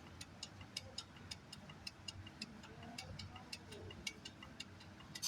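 Rapid, even mechanical ticking, about four ticks a second, with a single sharper metallic clink near the end.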